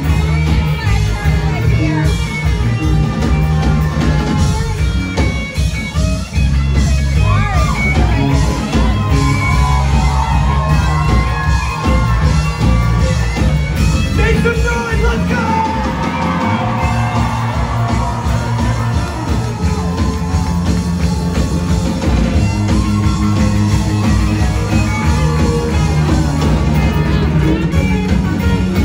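Live rock band playing, with electric guitar lead lines bending in pitch over a steady bass and rhythm part.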